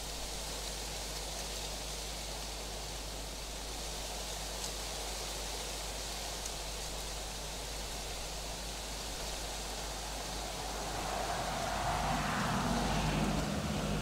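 Steady outdoor night background hiss, with a low constant hum beneath it. From about eleven seconds in, a distant vehicle swells louder for a couple of seconds.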